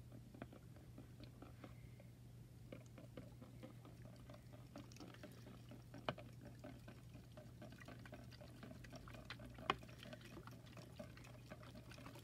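Water dripping and trickling out of a liquid-filled glitter phone case being shaken over a plastic bucket, with small clicks from handling the case. It is faint, with a few sharper ticks, the loudest about three-quarters of the way in.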